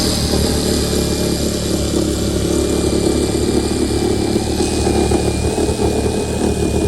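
A power tool running steadily as it cuts an opening for a wall furnace, with a thin high whine through it, stopping just after the end.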